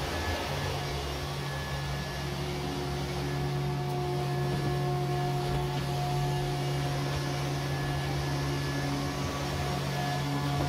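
Robot vacuum cleaner running across a hard floor: a steady motor hum with a few held tones on top, some coming and going.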